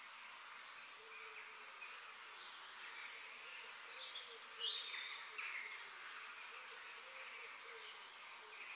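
Faint outdoor ambience: insects buzzing and short, high bird chirps, with one louder rising call about four and a half seconds in.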